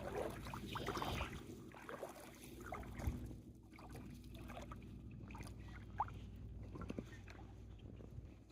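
A four-wheel-drive vehicle's engine idling steadily, with a few faint clicks and knocks.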